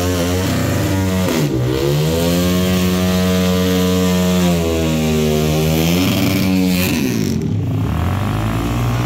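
Dirt bike engine revved and held at high revs, dipping briefly about a second and a half in and again around five seconds, then dropping back toward a lower idle near the end.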